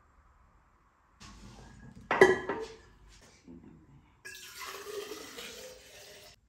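Kitchen crockery: a sharp ringing clink about two seconds in, the loudest sound, with a few lighter knocks after it, then water running for about two seconds near the end.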